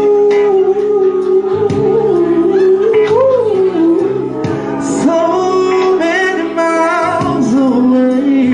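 A singer performing karaoke into a handheld microphone over a recorded backing track, holding long notes that waver in pitch.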